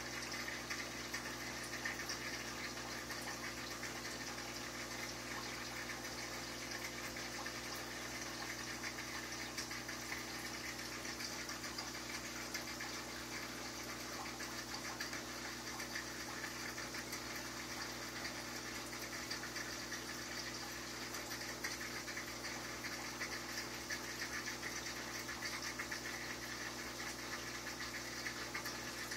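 Aquarium pump running: a steady hum under an even hiss, with small irregular crackles.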